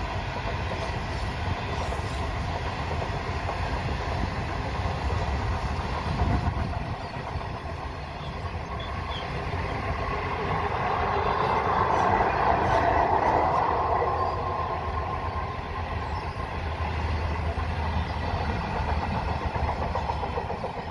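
Indian Pacific passenger carriages rolling across a girder bridge: the steady sound of steel wheels on rail, louder around the middle, as the rear of the train passes.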